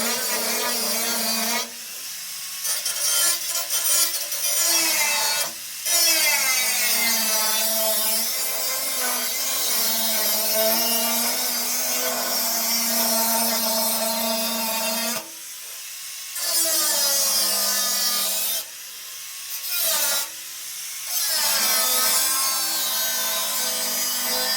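A power tool's motor running in long stretches, its pitch drifting up and down, with several short stops: about 2 and 6 seconds in, a longer one around 15 to 16 seconds, and two more near 19 and 20 seconds.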